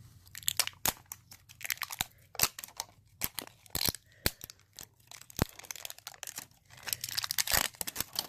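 Crinkly plastic wrapping of an L.O.L. Surprise ball being torn open and crumpled by hand: a dense, irregular run of sharp crackles and rustles.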